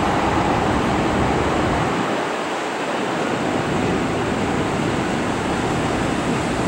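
PCC streetcar rolling past at close range, a steady noisy rumble of its wheels on the rails.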